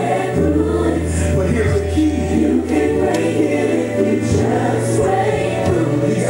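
Gospel song with a choir singing over instrumental backing, a deep bass note held for a few seconds near the start.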